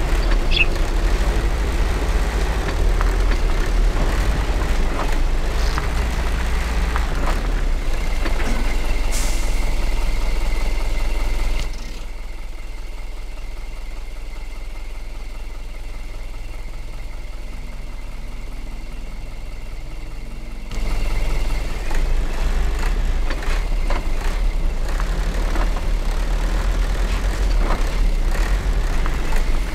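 Mitsubishi Colt Diesel truck's diesel engine running with a heavy low rumble; the sound drops noticeably quieter for about nine seconds in the middle, then comes back at full level.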